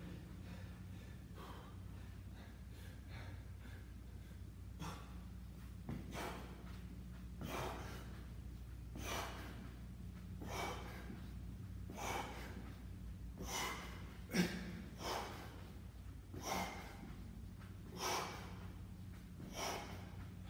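A man's hard, rhythmic breaths of exertion: a short forceful exhale with each kettlebell swing-to-reverse-lunge rep, about one every second and a half, growing plainer after the first few seconds.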